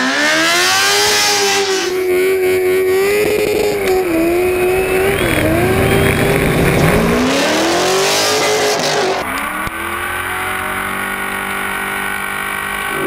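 High-revving engines and sliding tyres of a motorcycle-versus-car drift: the stretched 2005 Kawasaki ZX10 sportbike's inline-four and the Corvette LS1 V8 in an RX7, revving up and down as they drift. The sound changes abruptly about 2, 7 and 9 seconds in.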